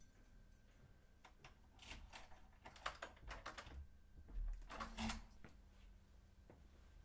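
Quiet clicking and rattling at a wooden front door with a metal bolt and lock, in two clusters about three and five seconds in, with a dull thump between them.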